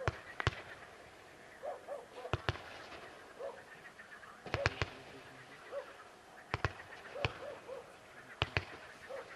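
SU-68 multi-shot firework salute battery firing: sharp bangs in bunches of two to four, coming about every two seconds.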